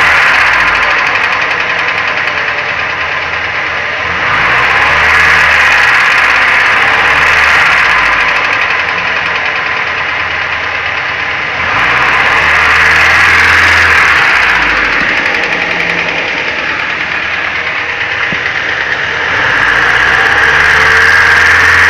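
Car engine running with a knock, its revs rising and falling in slow swells about three times.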